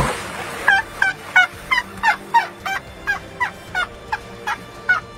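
Asian elephant calf giving a rapid run of about fifteen short, high squeaking calls, three or four a second, each with a quick dip and hook in pitch, starting just under a second in: the calf calling its mother to follow.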